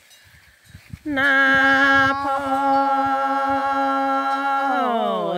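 A single unaccompanied voice chanting a Karen tha poem: after about a second of quiet, one long held note that slides down in pitch near the end.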